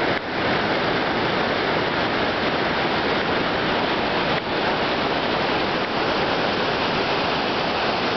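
Iguazu Falls: a huge waterfall pouring over its edge, heard close as a loud, steady rush of falling water.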